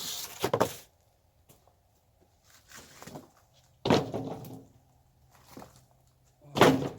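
A few separate knocks and thumps, the loudest about four seconds in and again near the end.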